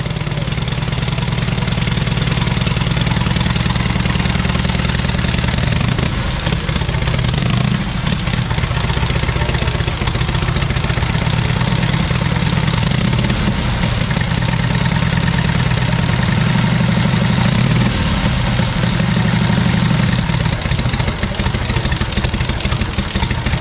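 Vintage motorcycle engine running at idle on its stand, the speed changing a few times.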